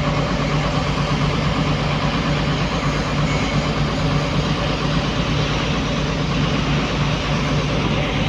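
Hyundai 215 hydraulic excavator's diesel engine running at a steady speed.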